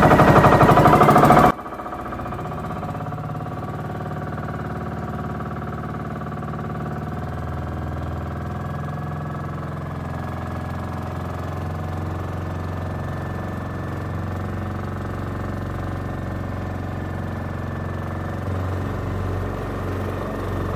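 Engine of a motorized outrigger boat (bangka) running steadily under way, a constant drone. A louder, rougher stretch cuts off abruptly about a second and a half in.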